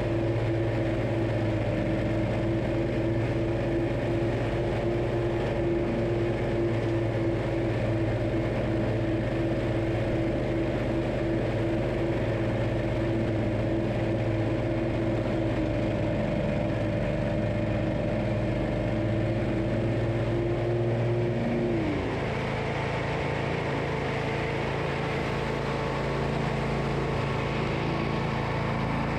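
Zero-turn riding mower's engine running steadily, its pitch dropping quickly about three quarters of the way through, then running on evenly at the lower speed.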